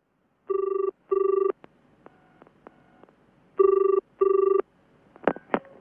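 Telephone ringing in a double-ring pattern: two pairs of rings about three seconds apart, then a few sharp clicks as the call is picked up.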